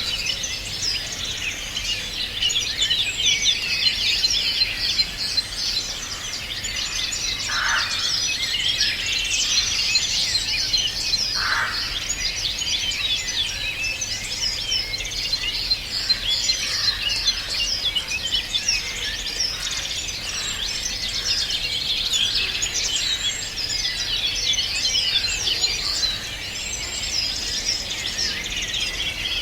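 A dense chorus of many songbirds singing at once: a continuous mix of quick high chirps and trills, with a few lower single calls standing out now and then.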